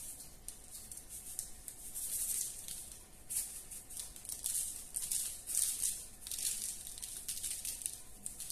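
Coarse sea salt rattling in a shaker container, shaken in short irregular bursts as it is sprinkled over pretzel-bun dough.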